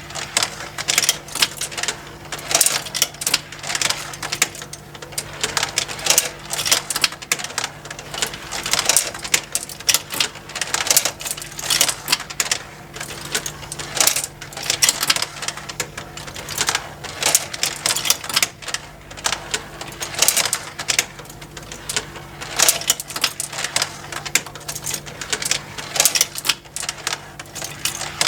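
Plastic marble run toy with motorized conveyors lifting marbles: glass marbles clicking and clattering against plastic tracks and against each other in a dense, irregular stream, over a faint steady motor hum.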